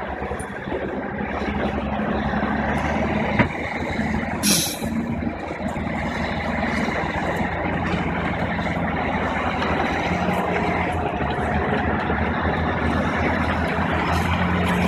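Heavy diesel truck engine running steadily under load. There is a short hiss of released air, like an air brake, about four and a half seconds in.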